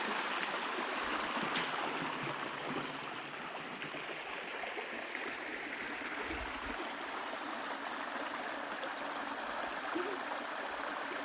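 Stream water running steadily, an even rush with no breaks.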